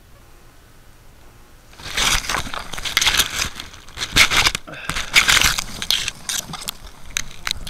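Rustling, scraping and crackling from a crashed camera quadcopter being picked up out of long grass: the grass and the plastic frame rub against the onboard camera's microphone. The handling noise begins suddenly about two seconds in and carries on in a dense run of crackles and clicks.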